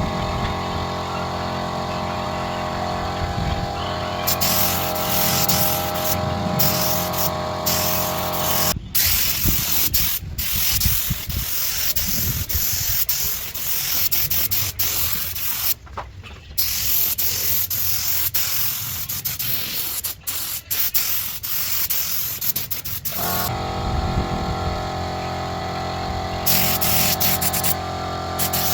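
Electric power tool running steadily on wood. From about 9 s to about 23 s the steady motor tone gives way to a rough, scratchy grinding noise as the tool bites into the wood.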